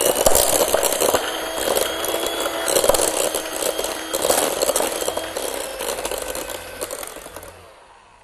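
Electric hand mixer running with its beaters clattering against a glass bowl as it creams butter and sugar. The sound fades away near the end.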